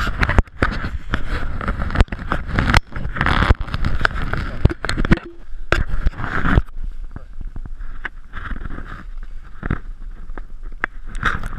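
Wind rumbling on an action camera's microphone, with clothing rustle and irregular clicks and knocks from close handling of the camera and the rod and reel.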